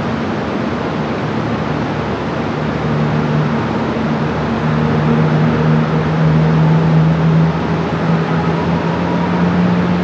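Water rushing over a low dam spillway into whitewater, a steady loud rush. A steady low mechanical hum joins about three seconds in, grows louder, and eases slightly near the end.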